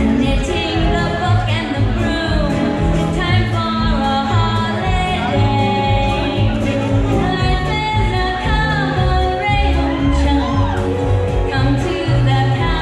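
Musical-theatre song in cabaret style playing loudly, a band with a singing voice over it.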